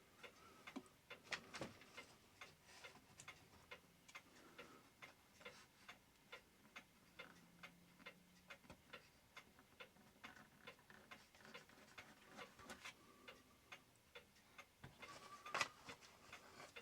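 Mechanical clock ticking faintly and steadily, with a couple of louder clicks from small parts being handled.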